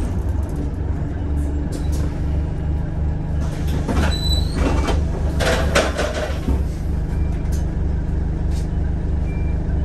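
Bus engine running steadily, heard inside the passenger saloon as a low pulsing drone. A louder burst of rattling and hissing noise comes about halfway through.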